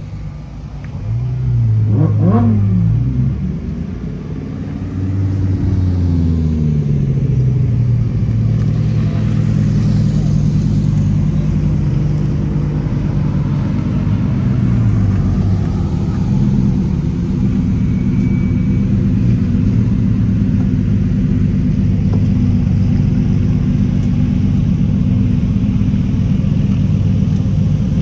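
Lamborghini supercar engines: one blips a quick, sharp rev about two seconds in, another's note rises and falls as it passes a few seconds later, and then several cars run with a steady low drone as they roll in and idle.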